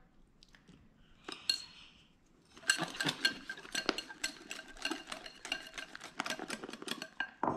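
Wire whisk beating dalgona coffee by hand in a ceramic bowl: a fast, dense clicking of the wires against the bowl, starting about two and a half seconds in after a quiet pause.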